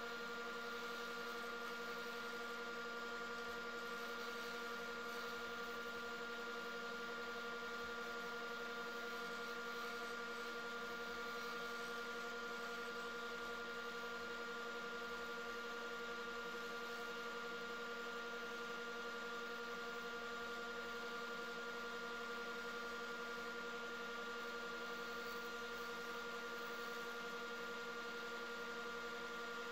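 Wood lathe running steadily: a constant electric hum with a few held tones, over a faint hiss as the turning tool cuts a spinning blank of cactus wood and resin.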